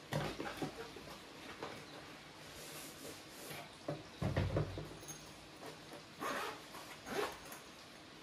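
Packaging noise from unboxing a camera lens: the cardboard box and its inner packing rustle and scrape, with scattered small clicks and a few louder bumps, the loudest about four seconds in.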